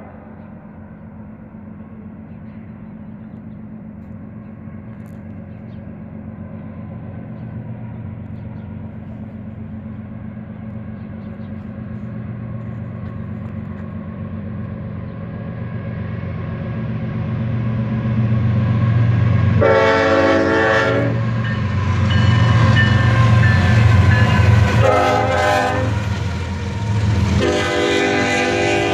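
Union Pacific GE C45ACCTE (ES44AC) diesel locomotives approaching, their engine drone growing steadily louder for about twenty seconds. The lead unit's horn then sounds three blasts for the grade crossing: one about two-thirds of the way in, a shorter one a few seconds later, and a longer one near the end as the freight cars start rolling past.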